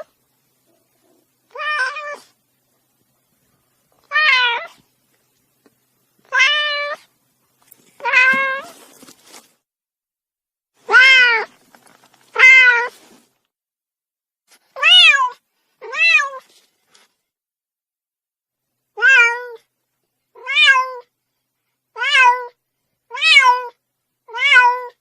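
Domestic cat meowing over and over: about a dozen short meows, each rising and then falling in pitch, with silence between them.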